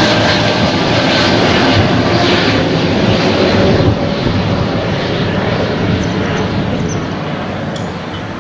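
Boeing 787-8 Dreamliner's jet engines at takeoff climb power as the airliner climbs away: a steady, dense rushing noise with faint whining tones in it, which grows gradually quieter from about halfway through as the jet draws away.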